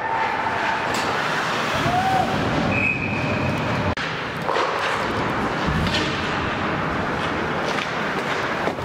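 Ice hockey arena sound during play: a steady wash of skating and crowd chatter, with sharp clacks of sticks and puck, and a short high tone about three seconds in.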